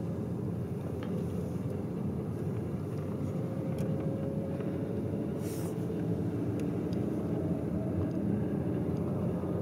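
Steady road and tyre rumble with a low engine hum, heard from inside the cabin of a 2020 Skoda Superb driving along, with a faint steady whine over the rumble.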